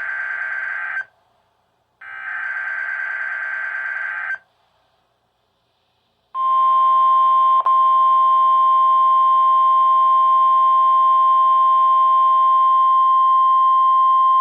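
NOAA Weather Radio alert signalling. First come two bursts of SAME digital header data, each a harsh warbling buzz a little over two seconds long. About six seconds in, the steady single-pitch warning alarm tone starts and holds, broken once by a brief click. This sequence marks the start of a new alert, here a severe thunderstorm watch.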